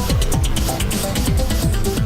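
Electronic dance music with a steady four-on-the-floor kick drum and hi-hats, about four beats a second.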